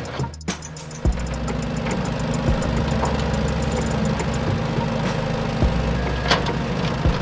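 An engine running steadily at idle with a low, pulsing hum. It drops out briefly near the start and picks up again with a sharp knock about a second in.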